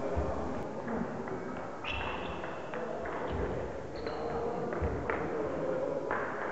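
Table tennis rally in a sports hall: the celluloid-type ball clicks off the rackets and bounces on the table about ten times, irregularly spaced, each click ringing in the hall.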